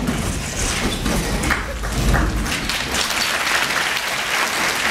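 An audience applauding, dense and steady, with a low rumble beneath it that stops about three seconds in.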